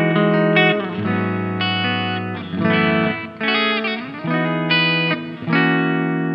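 Saito S-622CST Telecaster-style electric guitar with SAYTONE Stax pickups played on a clean tone. Chords and notes ring out together, with a new chord or phrase about every second.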